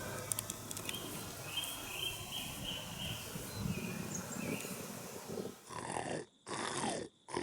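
Rutting deer calling: short groans, each falling in pitch, repeated about once a second, starting near the end after a faint outdoor background with a few bird chirps.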